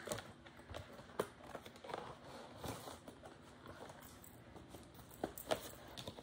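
Cardboard product box being handled and turned over: irregular light taps and knocks of the cardboard with faint rubbing, two of them close together near the end.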